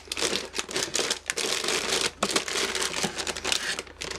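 Thin clear plastic bags crinkling and rustling as bagged plastic model-kit runners are handled and shifted in their box: a continuous run of crackles.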